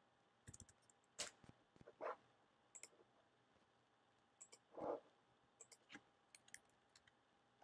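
Faint, scattered computer mouse clicks over near silence.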